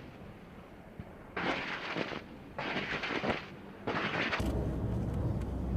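Apache's 30 mm chain gun firing short bursts, four of them, each under a second, heard as harsh rattling noise. A steady low helicopter drone comes in near the end.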